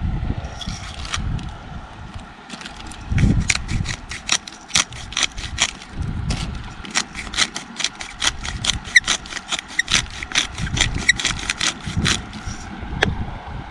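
Hand-twisted pepper grinder cracking black pepper: a long run of quick dry clicks starting about three seconds in, under low gusts of wind rumbling on the microphone.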